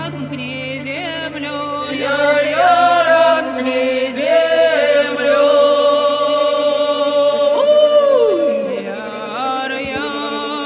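Folk song soundtrack: chant-like singing with gliding, long-held notes over a low drone that stops about three and a half seconds in. Near the end one long held note falls away in pitch.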